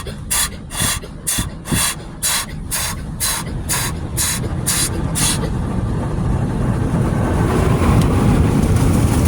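Automatic car wash spraying the soaking solution onto the car: a hissing spray beats against it in regular pulses, about two or three a second. About five seconds in, this gives way to a steady rush of water and machinery that grows louder.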